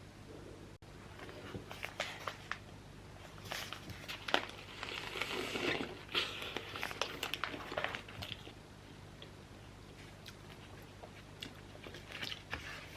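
Scattered small clicks and crunchy, crinkly rustling, busiest through the middle, over a steady low hum.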